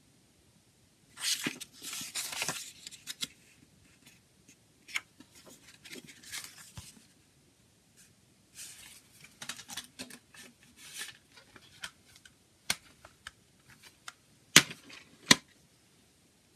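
Paper pages of a CD booklet rustling in several bursts as they are leafed through and handled, then a few sharp clicks near the end, the loudest two less than a second apart, as the plastic jewel case is closed and set down.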